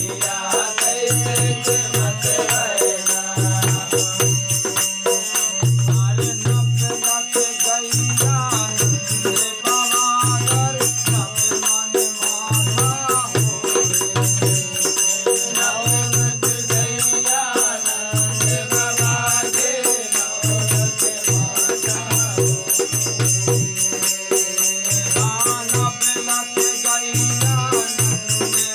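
Desi Ramayan devotional folk music: voices singing a bhajan over a steady drum beat about once a second and continuous jingling hand percussion.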